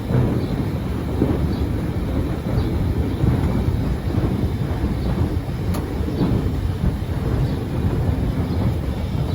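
Semi truck's engine running steadily with a dense low rumble while its hydraulic dump trailer is raised to slide out a load of lime, with a faint light tick about once a second.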